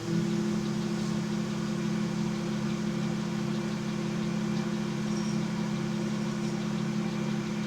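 Centre lathe motor and spindle running steadily at speed, an even hum with no change in pitch.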